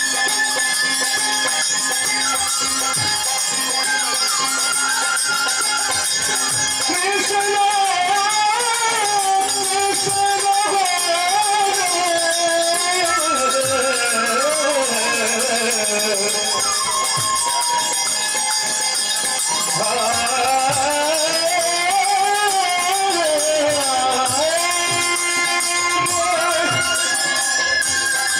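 Bengali kirtan music: small hand cymbals ringing continuously, with soft drum strokes underneath. From about seven seconds in, a melody slides slowly down and then back up.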